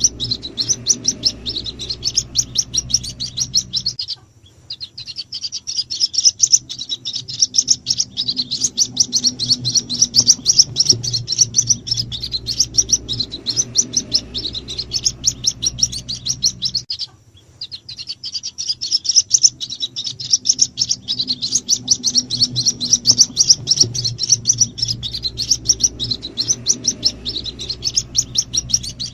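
White-breasted waterhen chicks calling: a rapid, unbroken stream of high-pitched cheeps, the lure call used to draw in the parent birds. The calls break off briefly about four seconds in and again about seventeen seconds in, over a faint steady low hum.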